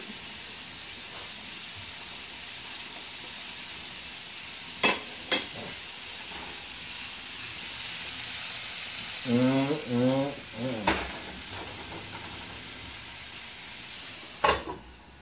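Pork chops and onions sizzling in a frying pan, a steady hiss, with a few clinks of utensils on the pan. Near the end a clank as the lid goes on, after which the sizzle is quieter.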